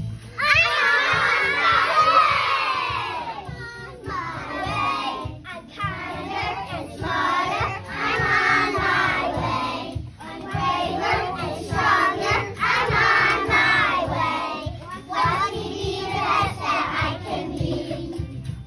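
A class of young children singing and shouting together in unison, in loud phrases of a few seconds with short breaks between them.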